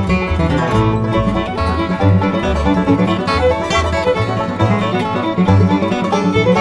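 Background bluegrass-style music with picked banjo and guitar over a steady, bouncing low note pattern.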